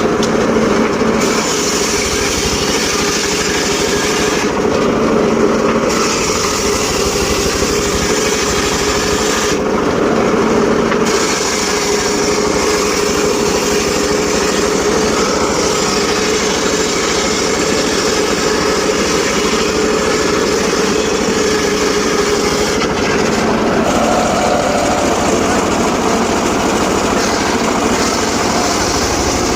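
Engine-driven portable circular sawmill running steadily while sawing teak, a loud, constant mechanical drone with a held tone.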